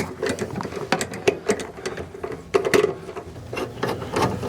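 Cordless drill-driver running steadily while backing out the screws that hold an RV furnace's gas valve, with clicking and rattling of the bit and screws against the metal.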